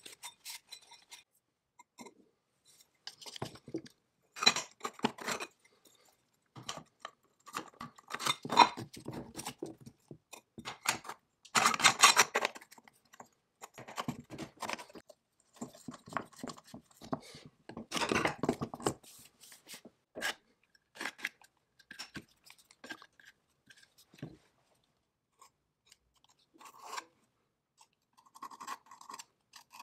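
Hand work on metal restoration parts: bursts of scraping and scratching lasting a second or two, with small clicks and clinks and pauses between them. The longest, loudest burst comes about twelve seconds in.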